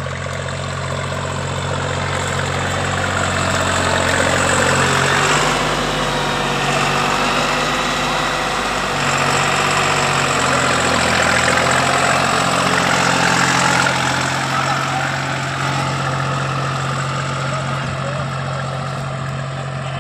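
Deutz-Fahr 50 HP tractor's diesel engine working steadily while pulling a tine cultivator through the soil. It grows louder as the tractor passes close by in the middle, then fades as it moves away.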